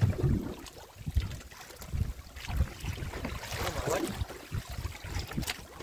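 Wind buffeting the microphone over water splashing around a small outrigger boat, with a few sharp knocks on the boat near the end.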